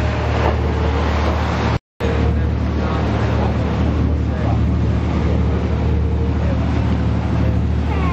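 Boat engine running with a steady low hum, under the rush of water and wind noise. The sound drops out for a moment about two seconds in.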